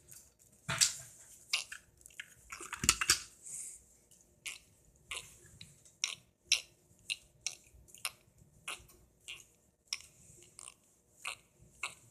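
Plastic Transformers toy being handled and transformed: irregular sharp clicks and snaps of its jointed parts and ratcheting hinges, with a couple of louder knocks about one and three seconds in.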